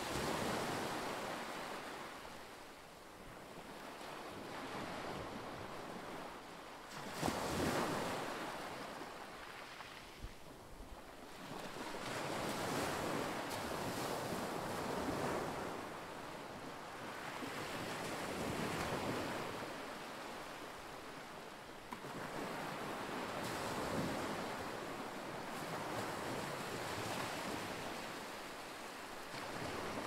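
Calm sea waves washing in and drawing back, a rushing surge that swells and falls every few seconds, the largest about seven seconds in.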